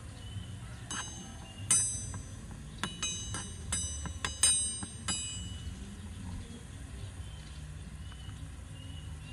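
Small metal utensil clinking against a miniature wok while stirring frying food: about eight sharp, ringing metallic strikes between one and five seconds in, over a low steady rumble.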